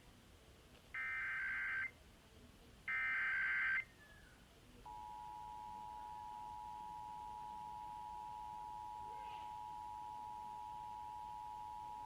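Emergency Alert System Required Monthly Test: the last two SAME header data bursts, each a buzzy warbling screech of about a second, two seconds apart. About five seconds in, the EAS attention signal starts: a steady two-tone beep (853 and 960 Hz) that signals an alert message is about to follow.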